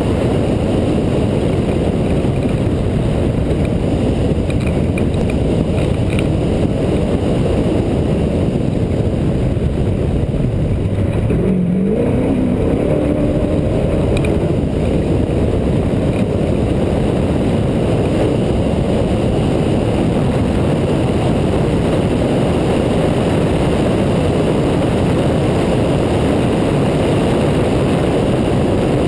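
Off-road race truck driving hard at speed: a loud, steady rumble of engine and rough dirt track. About twelve seconds in, the engine note briefly rises.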